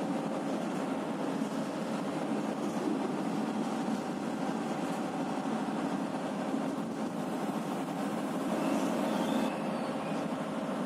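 Passenger train running along the track, heard from its rear generator van: a steady rumble of wheels and running gear, swelling slightly near the end.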